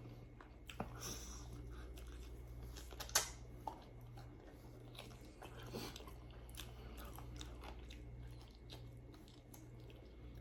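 Close-miked chewing and biting of food, with scattered short crunches and mouth clicks, the sharpest about three seconds in.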